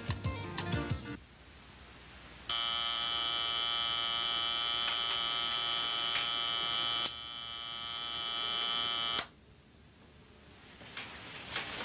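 Background music ends about a second in. After a short pause a bedside alarm clock's buzzer sounds, a steady electric buzz lasting several seconds that drops slightly partway through and then cuts off sharply as it is switched off. Faint rustling of bedding follows near the end.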